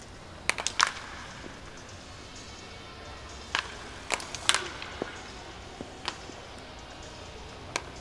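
Wooden bats cracking against baseballs during free batting practice: several sharp cracks, a quick cluster about half a second in and the loudest about four and a half seconds in.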